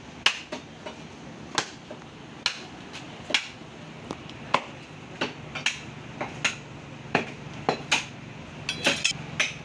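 Butcher's cleaver chopping beef on a wooden chopping block: sharp knocks, irregular, about two a second, with a quick run of strikes near the end.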